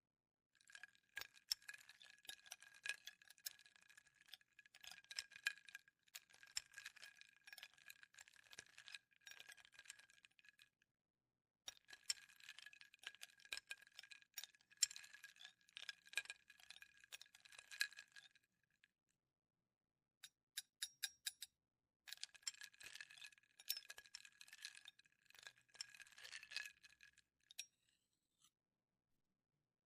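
Ice cubes clinking against a glass with a ringing glass tone, in three long runs of rapid clinks. A short run of separate, sharper clinks comes about two-thirds of the way through.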